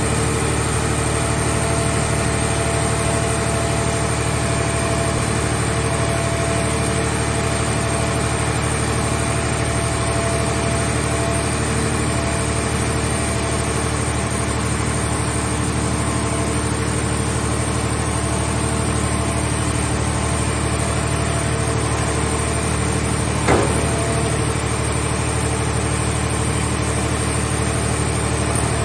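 Hydraulic car-body baler's power unit running steadily, an even mechanical hum with a fixed high whine over it. One short sharp knock or clank sounds late on.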